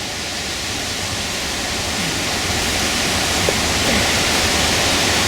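Steady rushing noise of wind and rain on the microphone ahead of a hurricane, with a heavy low rumble.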